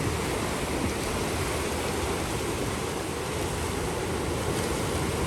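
Ocean surf washing onto a beach: a steady rush of breaking waves with no clear rise and fall.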